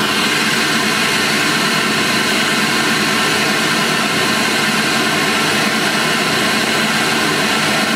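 Pink noise played through an Oris GR-658 car audio speaker: a loud, steady hiss that switches on suddenly at the start.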